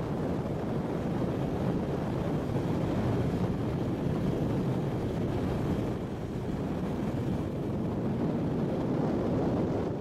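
Steady rumble of a vehicle driving on a gravel dirt road, heard inside the cabin: engine and tyres on gravel.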